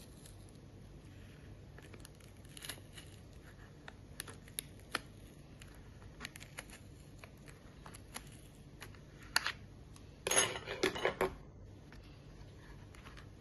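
Kitchen scissors cutting across the folded paperboard top of a tofu carton: scattered light snips and clicks, then a louder crackly burst lasting about a second, around ten seconds in.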